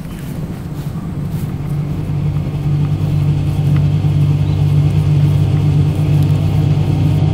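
A low, steady droning rumble that builds in loudness over the first three or four seconds and then holds.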